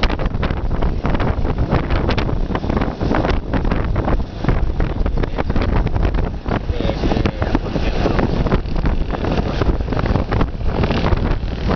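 Wind buffeting the microphone of a moving vehicle in irregular gusts, over the steady low rumble of the vehicle driving along the road.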